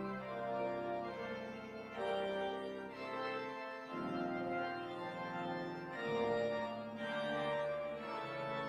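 Church organ playing sustained chords that change about every two seconds.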